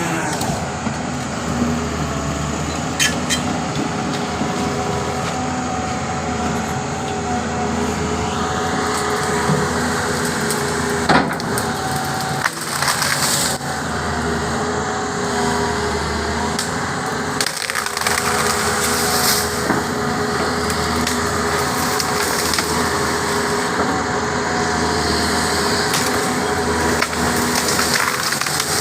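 Doosan 225 hydraulic excavator's diesel engine running steadily while mango tree wood cracks and splinters as the machine breaks the trees, with a few sharp snaps standing out.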